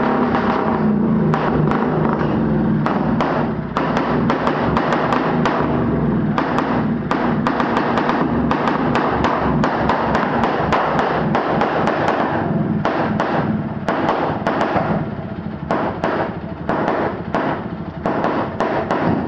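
1924 Garelli split-single two-stroke motorcycle engine running, its exhaust firing as a rapid, uneven string of sharp pops over a steady low drone. The sound dips briefly about four seconds in and eases a little in the second half.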